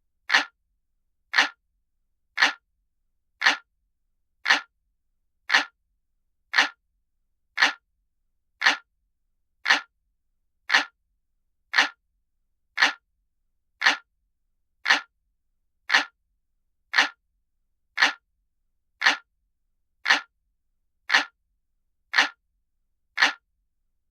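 Looped analog-clock ticking sound effect: one sharp, even tick about once a second, every tick alike.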